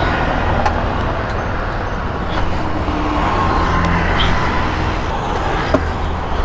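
Royal Enfield Interceptor 650's parallel-twin engine running on the move, mixed with steady wind and road noise, with a single sharp click near the end.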